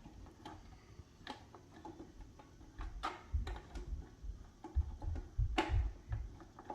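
Plastic parts of a tabletop waterfall fountain being handled and fitted together: scattered light clicks and taps, with a few dull low thumps partway through as pieces are set down.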